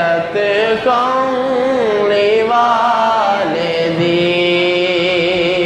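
Male voice singing a Punjabi naat, holding long notes that waver and bend in pitch, with a shift to a new phrase about a second in and again past the middle.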